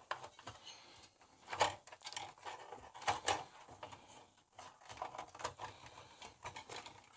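Faint, irregular small clicks and taps of parts and tools being handled as a vintage receiver is reassembled, with a couple of louder knocks about one and a half and three seconds in.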